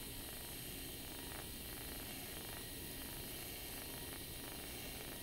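DC TIG welding arc on steel from a Miller Dynasty 200 inverter welder: a faint, steady hiss and buzz while the bead is laid.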